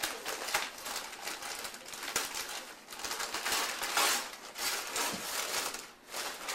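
Paper rustling, crinkling and tearing as a wrapped present is opened by hand, in irregular crackles that are loudest about four seconds in.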